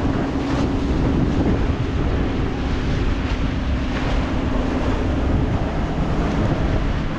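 Wind buffeting the microphone and water rushing along the hull of a motorized outrigger fishing boat underway, over the steady drone of its inboard engine.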